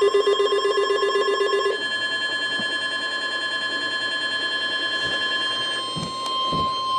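Emergency alert receiver sounding its alarm tones: a rapidly pulsing, ringing alarm tone that changes about two seconds in to steady tones, one near 1 kHz held to the end, the attention signal that comes before a broadcast weather warning. A couple of low thumps near the end.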